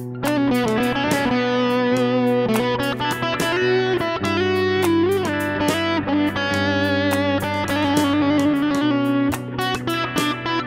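Instrumental background music: a lead melody with sliding, bent notes over held bass notes and a steady beat.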